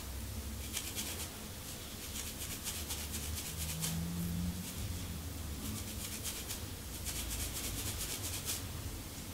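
Close scratching of a dry, dandruff-flaked scalp through short hair, in several bursts of rapid scraping strokes with short pauses between them.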